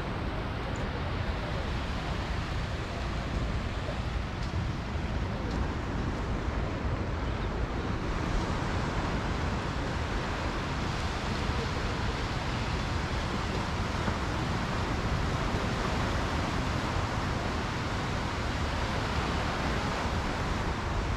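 Steady wash of sea surf on the beach, with wind rumbling on the microphone.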